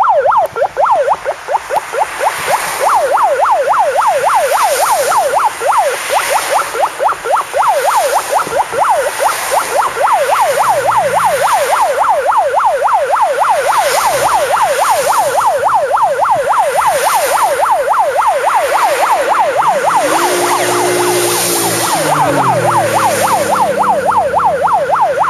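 A fast electronic yelp siren sweeps rapidly up and down without a break as a column of cars drives past. Swells of tyre and engine noise come with each passing car. About twenty seconds in, a lower tone falls in pitch as a vehicle goes by.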